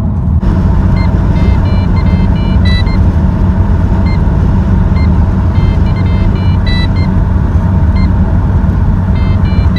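Holden VZ Commodore instrument cluster chiming short electronic warning beeps in irregular clusters over the steady hum of the idling engine. The beeping comes with ABS and brake warnings as the dash drops out, which the owner traced to a faulty alternator sending the voltage high.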